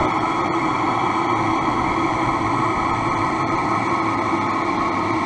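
Model steam engine and boiler of a scale steamboat running: a steady hissing rush with a few faint steady tones over it and no distinct strokes.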